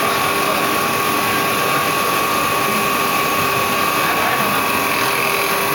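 CNC wood lathe turning a wooden spindle, its cutter peeling shavings off the spinning blank: a loud, steady machine noise with a constant whine through it.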